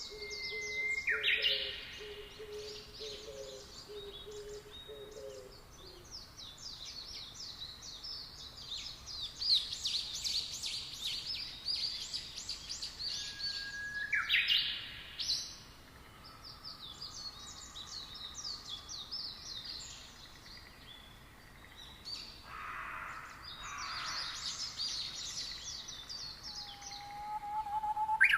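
Several wild birds calling at once: dense, rapid high chirping throughout, a low hooting note repeated over and over for the first five seconds or so, and a few louder sweeping calls about a second in, around the middle and at the very end.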